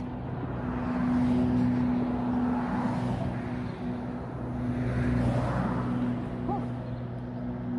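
Road traffic: a steady engine hum with a rushing sound that swells twice as vehicles pass.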